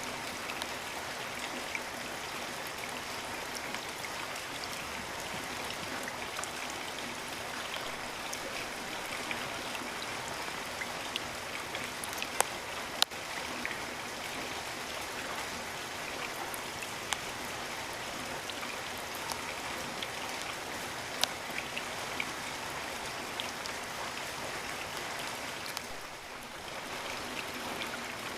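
Steady rain falling, an even hiss of rainfall with single drops striking close by now and then, a few of them sharp and loud around the middle.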